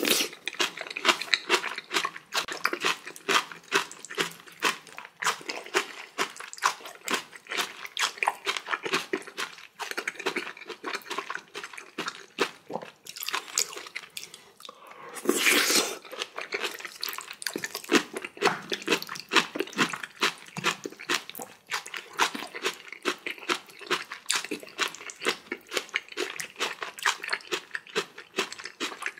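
Close-miked eating: steady crunching and chewing of spicy cabbage kimchi and black bean noodles (jajangmyeon), in dense irregular bites, with one longer, louder rush of sound about halfway through.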